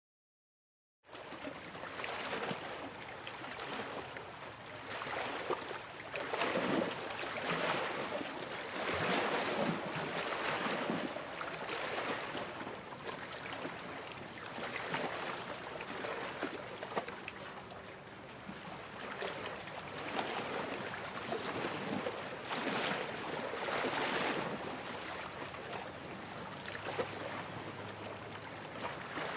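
Small waves washing and splashing against large shoreline rocks, one wash after another every second or two. The sound starts about a second in.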